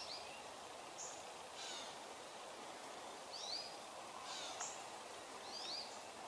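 Small birds calling in woodland: short chirps and quick rising whistles every second or so, over a faint steady hiss of background noise.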